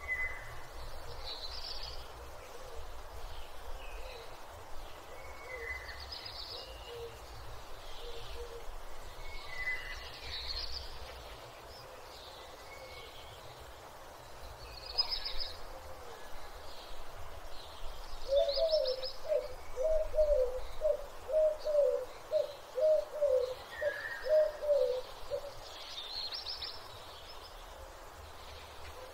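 Morning birdsong: scattered high chirps and tweets from several small birds, joined about two-thirds of the way in by a bird's run of about a dozen low calls, roughly two a second, which are the loudest sound.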